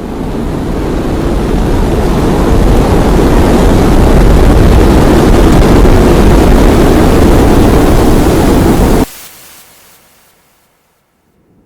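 Strong wind blowing as a loud, even rush, as in a severe dust storm; it builds over the first few seconds, holds steady, then cuts off suddenly about nine seconds in.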